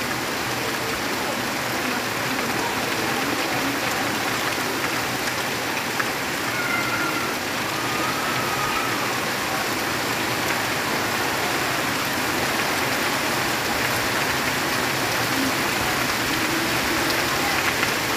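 Heavy rain falling steadily on trees, banana leaves and vegetation: a dense, even hiss of rain with no let-up.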